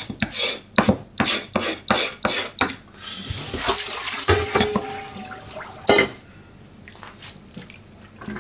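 About eight quick scraping strokes on a plastic cutting board, then tap water running into a stainless steel kitchen sink, and a single loud clank of a stainless steel bowl about six seconds in.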